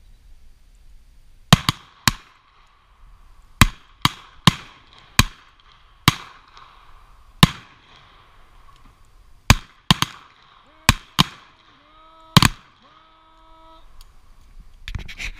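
A string of revolver shots: about a dozen sharp reports at uneven intervals, each trailing off in a short echo.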